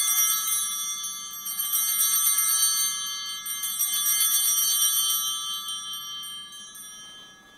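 Altar bells (a cluster of small Sanctus bells) rung in three shaken peals, then fading out, marking the elevation of the consecrated host.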